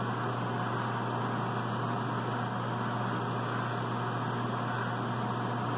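Airbrush spraying paint thinned 50/50 with alcohol at about 60 psi: a steady hiss of air over a constant low hum.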